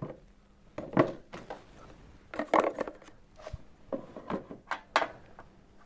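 Scattered clicks, knocks and clatter of hard objects being handled: plaster dental models and expander appliances being picked up and set down on a steel bench, with a denser clatter about halfway through and several quick knocks near the end.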